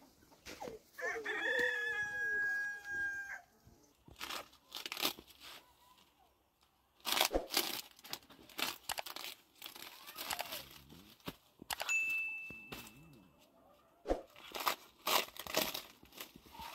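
A rooster crows once, a single long call with a held high note about a second in. After it come dry, irregular rustling and crackling as thin sheets of flatbread are handled and stacked on a cloth, with a brief thin high whistle-like tone partway through.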